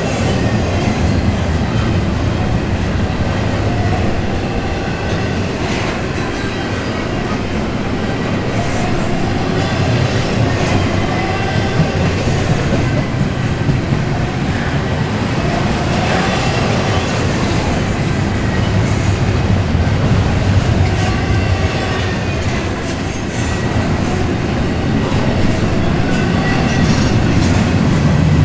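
Double-stack intermodal freight cars rolling past close by: a steady rumble of steel wheels on rail, with irregular clicking over rail joints and faint high squealing tones.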